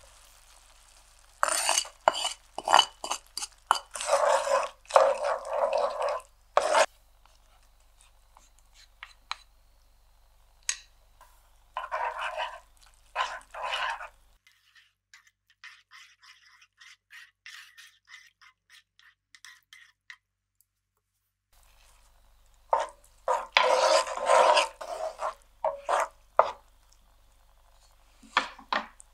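Udon noodles being stirred in a frying pan with an egg and cheese carbonara sauce, the utensil scraping against the pan as the sauce is worked until thick and glossy. The stirring comes in three spells of quick strokes, with a much quieter pause in the middle.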